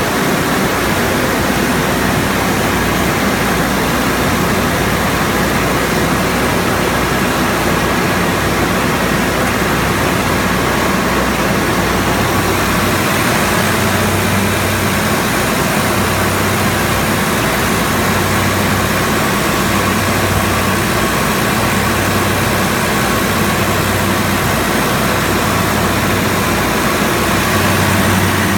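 A Trielectron 20-ton aircraft ground air conditioner running steadily: a loud, even rush of air over a low machine drone. From about halfway through, a low hum swells and fades every second or two.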